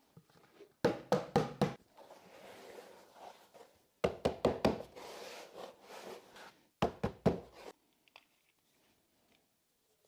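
Three bursts of quick knocks, four or five in each, with a soft hiss between them, from a bowl or bag being handled while mixing dry fishing bait.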